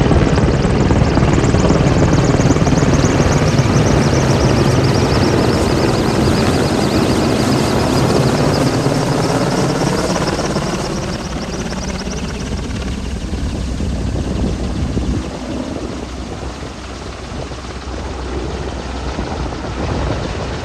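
AgustaWestland AW101 Merlin helicopter flying, its rotor thudding under a high turbine whine. The whine sinks slightly in pitch, and the sound grows fainter over the second half.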